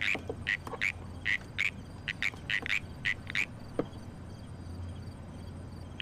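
Frogs calling: short, sharp croaks repeated two or three times a second, which stop about three and a half seconds in. A low steady hum runs beneath them.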